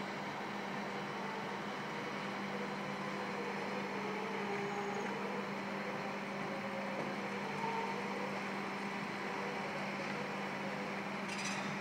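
Steady mechanical drone of machinery outside, with a constant low hum under an even hiss and a brief higher hiss near the end.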